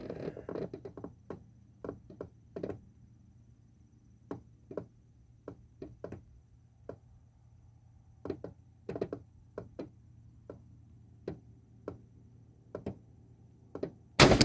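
Scattered light taps and clicks, then a single loud shotgun blast near the end as a 00 buckshot load is fired.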